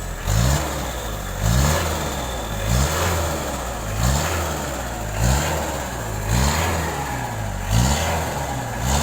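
Vehicle engine running with the throttle blipped again and again: short rising revs about every second and a quarter, eight times, each dropping back toward idle.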